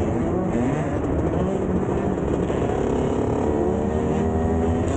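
125 cc two-stroke dirt bike engines revving as the bikes ride along. The engine pitch climbs and falls with the throttle, rising over the second half.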